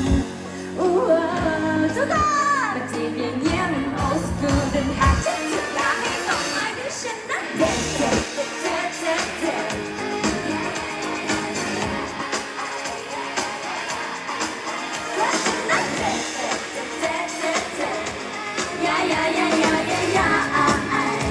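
Thai pop song performed live on stage: women singing into handheld microphones over band music, the deep bass dropping out about five seconds in.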